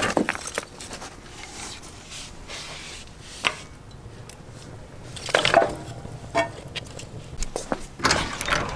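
A few scattered knocks and clunks, with a low steady hum coming in near the end.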